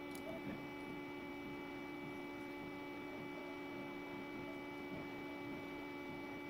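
Steady electrical hum made of several constant low and high tones over faint background hiss, with a few faint clicks.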